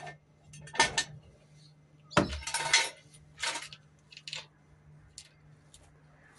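Metal clinks and clanks from the steel fuel-tank strap and its fixings being worked loose under the van, a loud cluster about two seconds in that begins with a dull thump, then a few lighter clicks.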